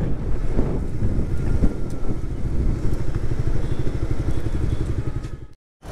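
Suzuki GSX-R150's single-cylinder engine running as the motorcycle is ridden along, under heavy wind noise on the microphone. The sound cuts off abruptly near the end.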